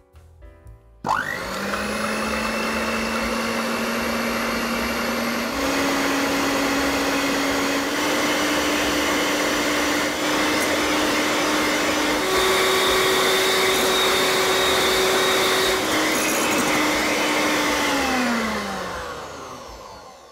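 Electric hand mixer whipping egg whites to stiff peaks. The motor switches on about a second in and steps up in speed three times. It then drops back a step and winds down to a stop near the end.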